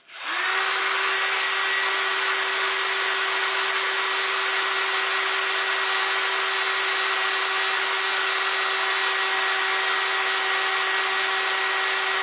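Cordless drill boring into a hardened, damaged cylinder head bolt to drill it out. The drill starts with a quick rise in pitch, then runs at a steady speed, a constant whine over the hiss of the bit cutting metal.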